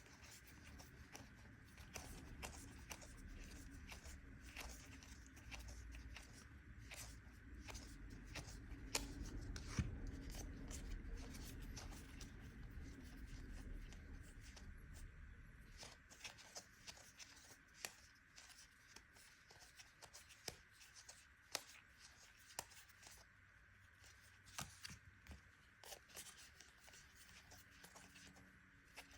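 Trading cards being flipped through and set down: faint, scattered soft ticks and rustles of card stock, with a low rumble of handling during the first half.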